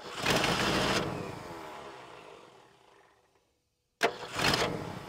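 Starter cranking the 1968 Ford F350's 360 cubic-inch FE V8 in two short bursts about four seconds apart, each starting with a click, with the fuel line off the carburetor to test the fuel pump, which is only dribbling fuel.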